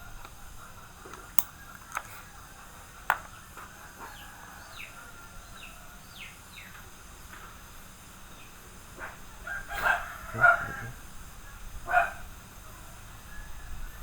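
Three sharp clicks, then a series of short, high, falling chirps, then three louder animal calls near the end.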